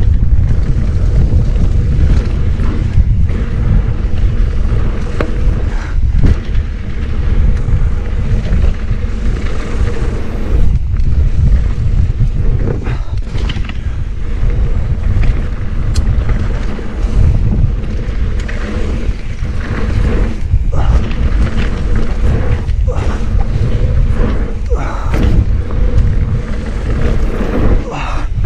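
Mountain bike rolling fast down a dirt singletrack: a steady low rumble of wind buffeting the microphone and knobby tyres on the dirt, broken by frequent thumps and rattles as the bike hits bumps and rocks.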